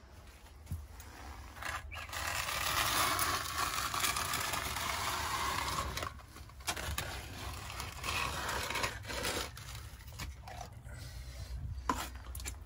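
Plastic dustpan scraped repeatedly across concrete paving, scooping up a pile of wet, powdery magnesium anode sediment flushed out of a hot water tank. One long scrape comes first, then several shorter ones.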